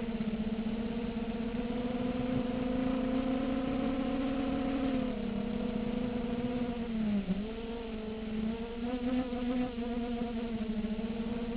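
Brushless motors and 5-inch propellers of a 250-size FPV quadcopter buzzing steadily in flight. The pitch drops slightly about five seconds in, dips sharply and briefly about seven seconds in, then wavers with changing throttle.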